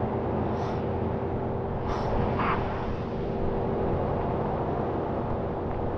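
Self-serve car wash's high-pressure equipment running: a steady hum with a continuous hiss, broken by two or three brief high chirps in the first half.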